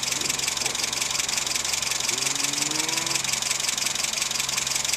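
Car engine fitted with a 123ignition electronic distributor, running steadily at an even speed.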